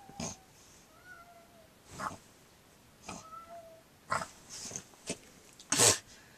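Dachshund puppy whining in short, thin whimpers, twice, among short breathy bursts, the loudest near the end.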